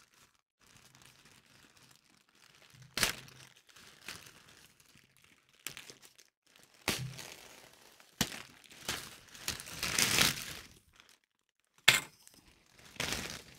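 Plastic mailing bag crinkling as it is cut with scissors and pulled open, with a few sharp clicks. The crinkling is loudest about ten seconds in, after a mostly quiet start.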